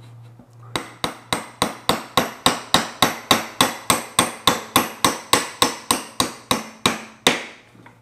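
Hammer driving a nail into a pre-drilled starter hole in scrap wood: a quick, even run of light blows at about four a second, starting about a second in and stopping shortly before the end.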